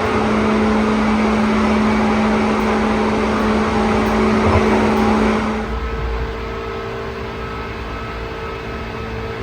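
Running noise of a Seibu Koedo limited express train heard from inside the carriage: a steady rushing with a held hum. About six seconds in it drops quieter and duller, and the hum changes pitch.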